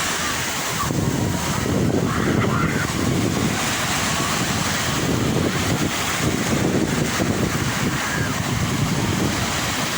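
Sea waves washing on the shore in a steady surge, with wind buffeting the microphone.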